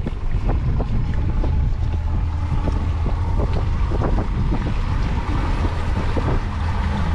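Engine of a Moonday 480 motorboat running steadily under way, with wind buffeting the microphone and the hull knocking now and then on the chop.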